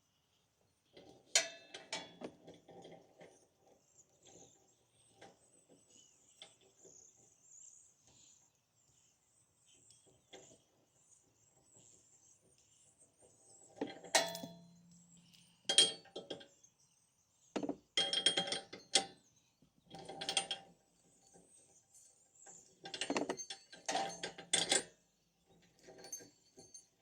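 Ratchet wrench clicking in several short bursts, with a few metallic clinks from tools.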